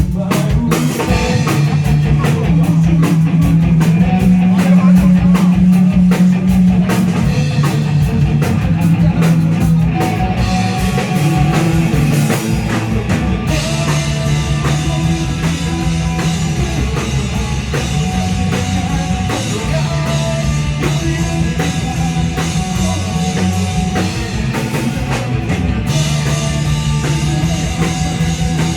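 Rock band playing live: drum kit and guitars over a steady bass line, with busy cymbal and drum hits that ease off about halfway through and pick up again near the end.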